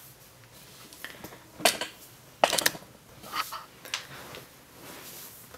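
Camera handling noise as the camera is panned along the shelf: four short clicks and knocks spread over a few seconds, the middle two the loudest.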